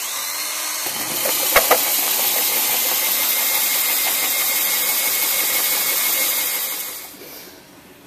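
Electric drill running a 38 mm (1.5-inch) hole saw through sheet metal, enlarging an existing 20 mm hole. It makes a steady, high-pitched grinding whine, with two sharp clicks about a second and a half in. The sound fades away near the end as the cut finishes.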